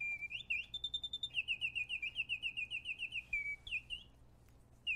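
Antique wind-up singing bird box: its mechanical bird whistles a quick chirping song, with a fast run of repeated sliding notes in the middle. It pauses briefly near the end, then starts again.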